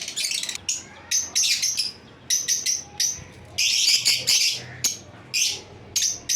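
Lovebirds calling: sharp, high chirps in quick runs, with longer shrill chattering bursts about a second in and again about four seconds in.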